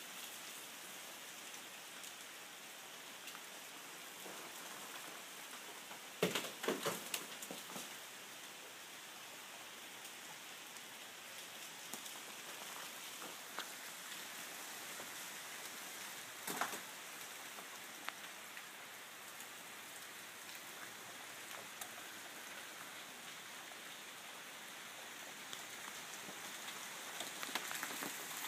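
Steady patter of ice and water falling through ice-glazed trees during an ice storm. A short run of sharp cracks and clatters comes about six seconds in, and a single crack about halfway through.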